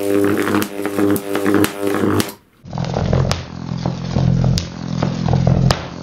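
High-voltage arc of a Jacob's ladder fed by series-connected microwave oven transformers, buzzing steadily with crackling snaps. It breaks off briefly about two and a half seconds in, then comes back as a lower buzz with a few sharp snaps.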